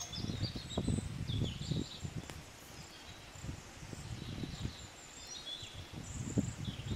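Outdoor ambience of small birds chirping again and again, with irregular low thuds and rustles from handling close by, strongest in the first two seconds and near the end.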